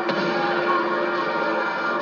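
Film soundtrack music with many sustained tones held steady throughout.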